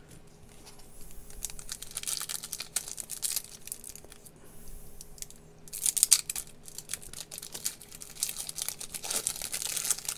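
Foil-lined trading-card pack wrapper being torn open by hand and crinkled, with a sharp, loud tear about six seconds in.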